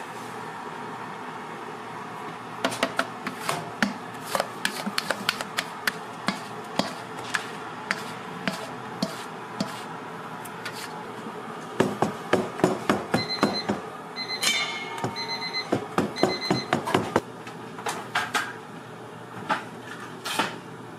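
Kitchen clatter: many short knocks and clicks of utensils against a stainless steel mixing bowl and baking tray, coming thickest in a burst about twelve to seventeen seconds in, over a steady kitchen hum. A few short electronic beeps sound in the middle of that burst.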